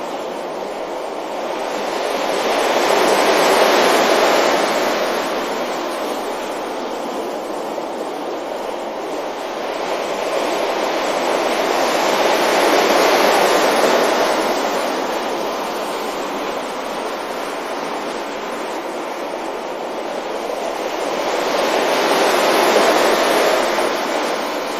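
Ocean waves breaking onto a beach: a steady rush of surf that swells three times, about every nine to ten seconds, as each wave comes in.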